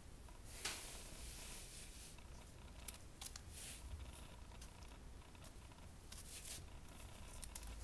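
Faint crinkling and rustling of a crumpled paper ball being batted and bitten by a kitten on a tile floor, in short scattered bursts, the loudest about half a second in.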